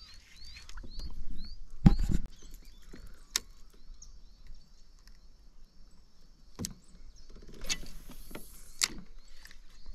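Fishing tackle handled on a kayak: a heavy knock about two seconds in and a few sharp clicks, then near the end about a second of hiss as line runs out on a cast, cut off by a click. Behind it a small animal keeps up short rising chirps, two or three a second.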